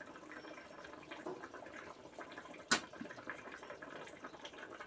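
Cooking oil heating in a karahi on a gas stove, crackling faintly and irregularly as it starts to sizzle. A single sharp click comes a little under three seconds in.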